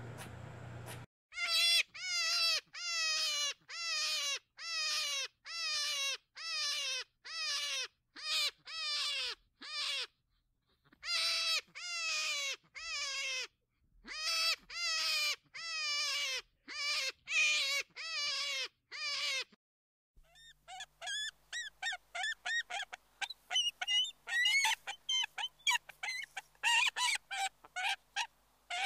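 Repeated falling animal calls, about two a second, in runs broken by short pauses. About two-thirds through they give way to a bald eagle's quick run of high, chattering chirps.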